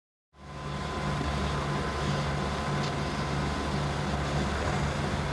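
Steady low mechanical drone of a South Shore electric passenger train standing in the shop yard, with a faint steady whine above it. It cuts in abruptly just after the start.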